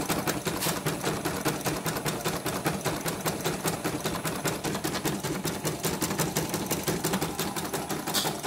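CNY computerized embroidery machine stitching a test design, its needle mechanism running in a rapid, even ticking rhythm. The technician attributes the machine's rough running to a cracked, slack timing belt.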